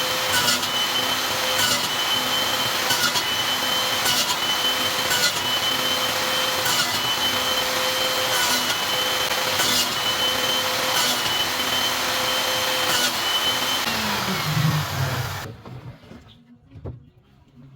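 Electric power tool running steadily with a faint tick repeating under a second apart. It is switched off about fourteen seconds in and winds down, falling in pitch, to a stop.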